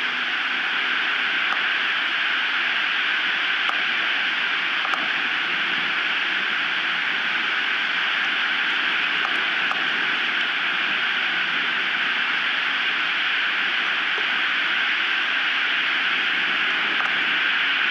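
Steady rushing hiss of strong wind on an outdoor nest-camera microphone, even throughout with no gusts standing out.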